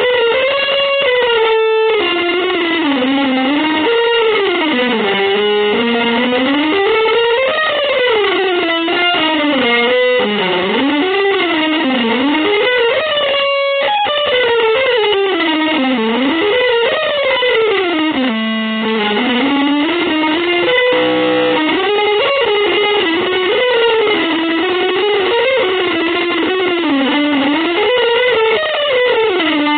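Electric guitar playing one long, winding melodic line that swoops up and down in pitch, broken only by a few short gaps.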